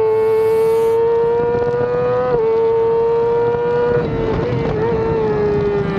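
Yamaha YZF-R6 inline-four race engine running hard at high revs, with wind rush over the camera on the front of the bike. The engine note climbs, drops sharply at an upshift about two and a half seconds in, climbs again, then eases gradually lower over the last couple of seconds.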